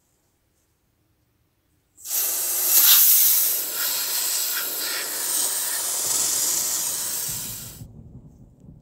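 WD-40 aerosol can spraying through its thin straw nozzle: one long hiss of about six seconds that starts abruptly about two seconds in and cuts off sharply near the end, followed by faint handling noise.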